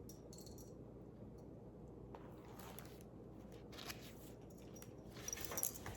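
Faint rustling and soft clicks of paper pages being handled as a picture book's page is turned, over a low steady room hum. The rustling thickens near the end.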